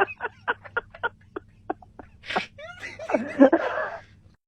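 Recorded fart sound effect played over a phone line: a string of short, soft little puffs that slow down, then a longer, rougher sputter about three seconds in.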